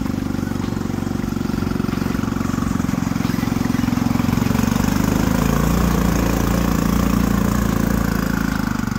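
Small engine of a Chinese K7 off-road buggy running steadily under way, its pitch dipping a little about five seconds in and picking up again.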